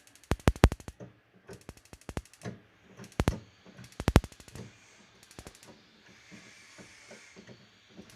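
Gas stove igniter clicking in quick clusters as it is worked over and over to light the burner. From about six seconds in, a soft hiss of gas follows.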